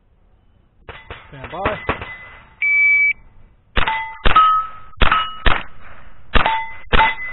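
A shot timer's start beep, then a .22 rimfire rifle firing six quick shots at steel plates, each shot followed by a short metallic ring from the struck plate.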